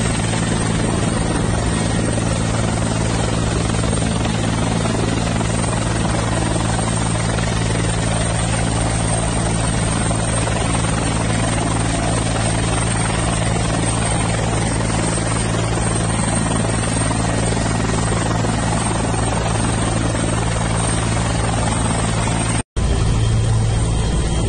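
Military utility helicopter running on the ground with its rotor turning: a steady, loud turbine and rotor drone with a constant low hum. Near the end it cuts out for an instant and comes back a little louder.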